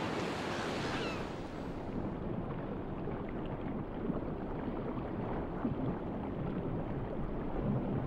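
Sea water at the surface, a steady wash of small waves, that turns duller and muffled about two seconds in, as underwater ambience with the high end gone.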